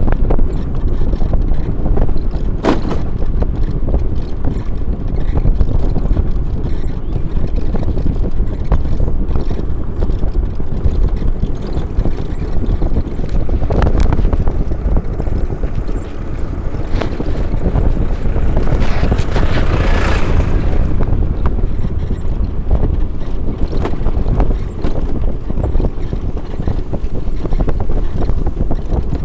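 Wind buffeting the microphone over a steady low rumble of travel along a road, with a few short knocks and a brief louder rush of noise about twenty seconds in.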